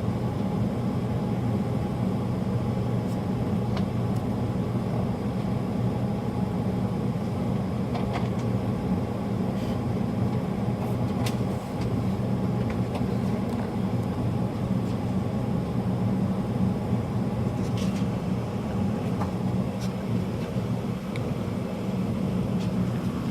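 Gas water heater burners firing, a steady low rumble that holds even throughout, with a few faint ticks.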